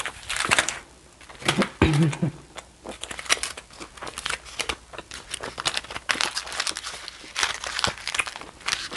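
Aluminium foil wrapping crinkled and crumpled by hand: a dense, irregular run of sharp crackles.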